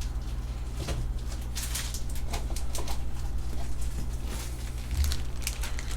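Trading cards and pack wrappers being handled: scattered soft rustles, swishes and clicks of cards sliding against each other, over a steady low hum.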